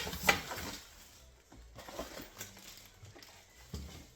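Sewing-machine parts and packaging being handled during unboxing: a sharp knock at the start, then scattered lighter knocks and rustling.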